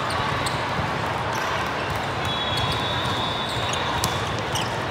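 Volleyball being played in a large, echoing hall crowded with courts: a steady wash of hall noise with sharp ball slaps, the loudest about four seconds in as the ball is played at the net.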